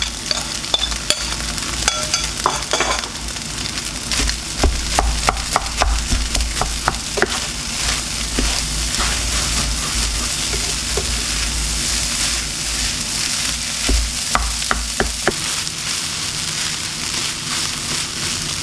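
Nasi goreng sizzling in a pan as a spatula stirs and tosses the rice, vegetables and egg, with frequent sharp clicks and scrapes of the spatula against the pan.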